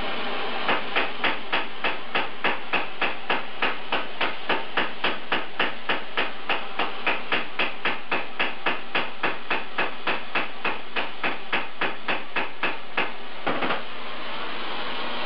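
Hammer beating a torch-heated 1.5-inch stainless steel exhaust pipe to flatten its end, a steady run of metal-on-metal blows about three a second that stops about 13 seconds in. Under it runs the steady hiss of a small oxy-acetylene torch flame.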